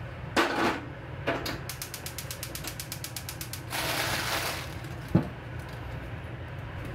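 Kitchen handling sounds: a quick run of small mechanical clicks, about ten a second for a second and a half, then a short hiss and a single sharp knock, over a steady low hum.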